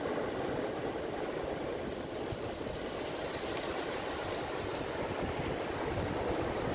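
Surf breaking and washing up a sandy beach in a continuous, steady roar of waves off a choppy sea, with wind rumbling on the microphone.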